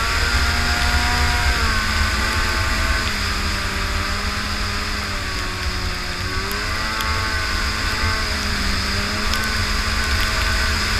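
Arctic Cat Firecat F6 snowmobile's two-stroke twin engine running under way, its pitch sagging and rising several times as the revs change, over a steady low rumble.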